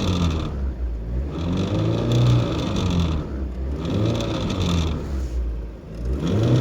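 VAZ-2110 engine revved in repeated throttle blips, about one every two seconds, its pitch rising and falling each time, with a buzzing that comes with the revs and that the owner cannot identify.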